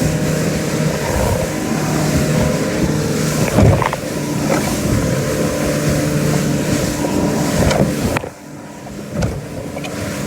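Motorboat engine running steadily under way, with a loud rushing of wind and water over it. The rushing drops away sharply about eight seconds in.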